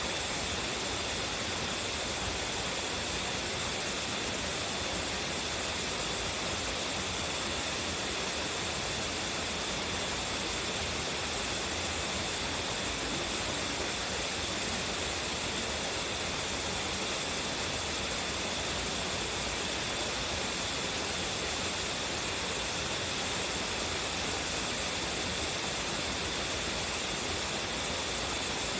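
A strongly flowing waterfall pouring, a steady, even rush of falling water with no let-up.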